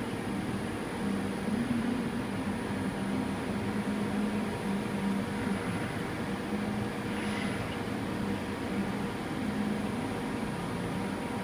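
CNC machining centre running during a touch-probe measuring cycle: a steady mechanical hum with a wavering low tone and a faint high whine, and one brief soft sound about seven seconds in.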